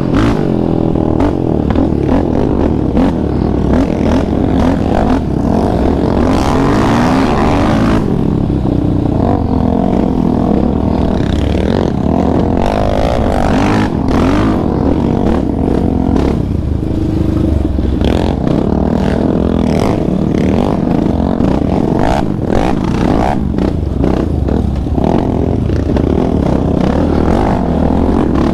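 Yamaha Raptor 700R quad's single-cylinder four-stroke engine revving up and down on a dirt trail, its pitch climbing and dropping as the throttle opens and closes, heard from a camera mounted on the machine. Scattered knocks and rattles come from the quad running over rough ground.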